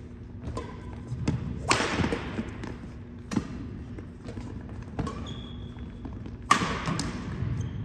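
Badminton rally: racquets striking the shuttlecock about every one and a half seconds, four hits in all, the first and last much harder than the others. Footfalls thud on the wooden court floor between the hits, and a short shoe squeak comes near the middle.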